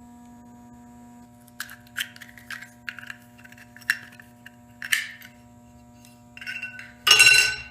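Small metallic clicks and scrapes as the insert is worked out of a dented, mangled satin chrome Zippo lighter case, ending in a louder ringing metal clink near the end.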